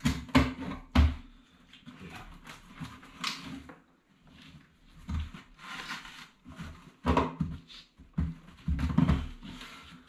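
Gas fire's metal surround and frame rattling, clunking and scraping as it is pulled and wiggled by hand to work it loose, with irregular knocks, the loudest about a second in and again near the end.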